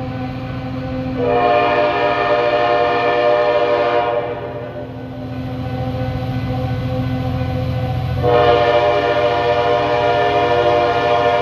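Horn of an EMD SD40 diesel locomotive sounding two long blasts for a grade crossing, a chord of several steady notes, over a steady low rumble.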